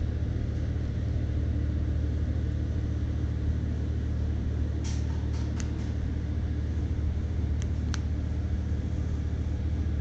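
Steady low machinery hum running throughout, with a few short paper rustles and ticks from manual pages being handled, about five seconds in and again near eight seconds.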